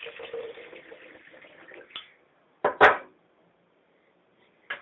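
Water being poured into a blender jar for about two seconds. Then comes a single loud knock, the loudest sound here, and a few faint clicks near the end.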